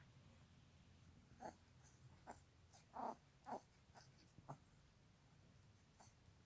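Yorkshire terrier puppy giving about five short, soft huffs and snorts while mouthing a hand in play, the loudest a little before halfway through.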